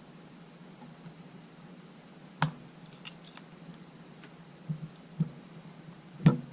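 A few sharp clicks and light knocks of small tools and camera parts handled on a workbench: one sharp click about two and a half seconds in, faint ticks just after, softer knocks later and the loudest knock near the end, over a low steady hum.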